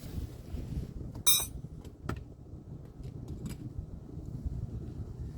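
Sharp metallic clink of tools being handled about a second in, then a softer click, over a low steady rumble.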